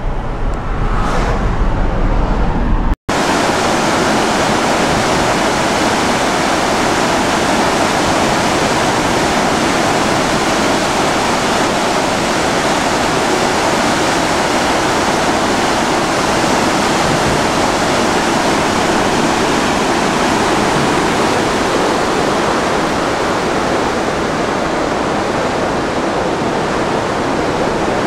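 Skeena River in flood, fast water rushing past a bridge pier: a loud, steady rush. For the first three seconds it is instead a car's road noise and engine rumble while driving over the bridge, cut off suddenly.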